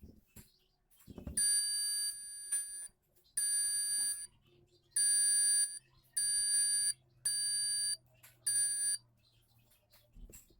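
Homemade electronic door alarm sounding: six separate beeping bursts, each about half a second to a second and a half long, with steady high-pitched tones.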